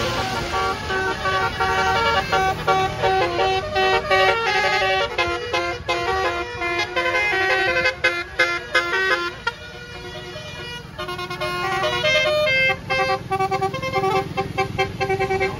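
A bus's basuri telolet horn, a multi-tone musical horn, playing a melody of held notes that change pitch in steps over a low rumble. It goes quieter for about two seconds just past the middle, then plays on.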